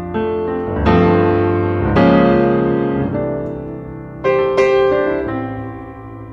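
Background piano music: slow chords struck and left to fade, with new chords about a second in, at two seconds, and a pair a little past four seconds.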